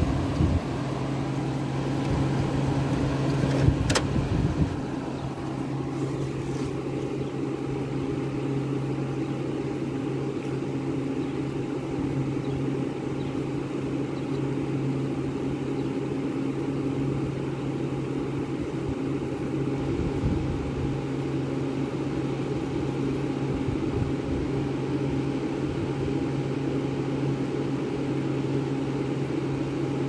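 Vintage Fedders room air conditioner running on super cool: a steady hum from its rotary compressor, which the owner takes by its sound for a Rotorex, under the even rush of the blower fan, with one sharp click about four seconds in.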